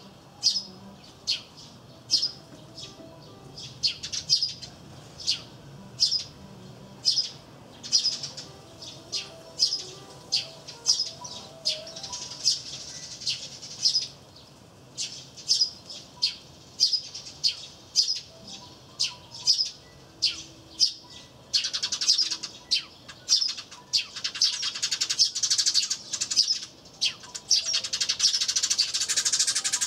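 Eurasian tree sparrows chirping: short, sharp chirps about once or twice a second, turning into a dense run of overlapping chirps about two-thirds of the way through.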